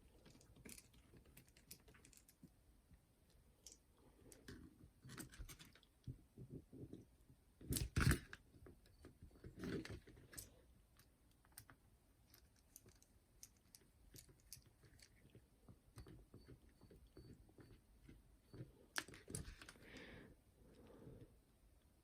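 Faint, irregular clicks and small knocks of a hand screwdriver and screws being refitted into the boombox's chassis, with a few louder taps scattered through.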